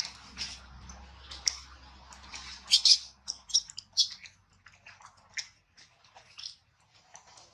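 Macaques shifting and handling a newborn on dry ground: irregular soft clicks and rustles, loudest in a short cluster about three seconds in.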